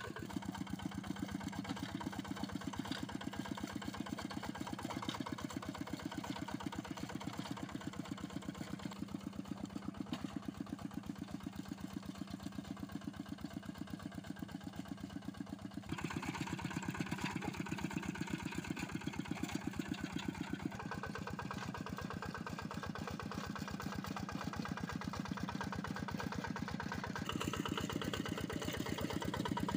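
A two-wheel hand tractor's single-cylinder diesel engine chugging steadily as the machine works through deep paddy mud. It gets a little louder about halfway through.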